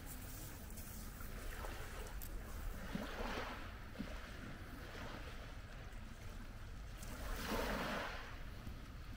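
Small waves washing up a pebble shore, swelling about three seconds in and again, more strongly, near the end, over a low steady rumble.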